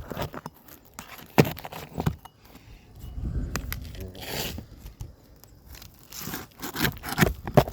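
Architectural asphalt shingles being pried up with a roof snake: the metal tool knocks and scrapes, and a longer stretch of scraping and tearing runs through the middle. The shingles are ripping, with the nails pulling straight through them.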